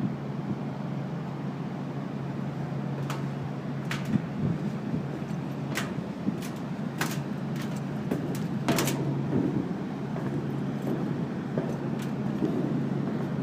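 A steady low mechanical hum under a haze of noise, with a handful of sharp clicks and knocks scattered through it.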